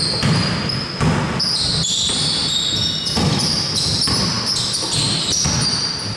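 Basketball bouncing on the court during live play, a sharp bounce every half second to a second, with a stream of short, high-pitched basketball-shoe squeaks on the floor.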